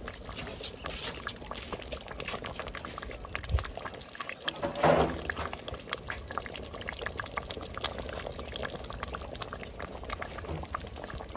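A pot of bitter ball soup, topped with red palm oil, bubbling at the boil, with a steady patter of small pops. A brief, louder sound comes about five seconds in.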